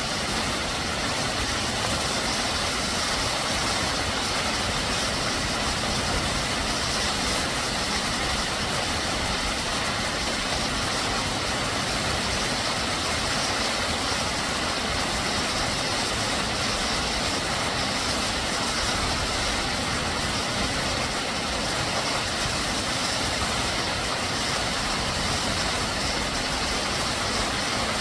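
Steady rushing roar of a waterfall, Minoh Falls, unchanging throughout.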